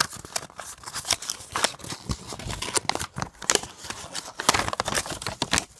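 Paper leaflets and a clear plastic blister tray from a toy's packaging being handled, rustling and crinkling with many irregular clicks and crackles.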